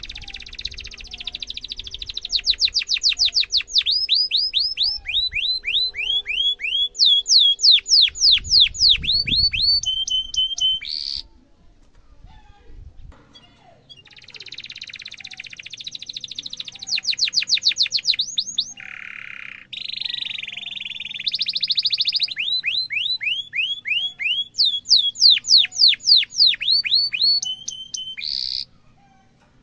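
Domestic canary singing two long song phrases, each a run of fast trills of repeated downward-sweeping whistled notes ('cuit cuit' rolls), with a pause of about three seconds between the phrases.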